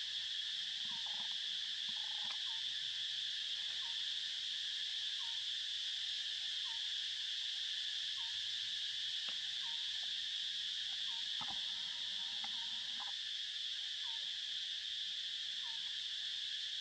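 Forest ambience: a steady, high-pitched insect drone, with short faint calls repeating about every second and a half and a couple of sharp clicks.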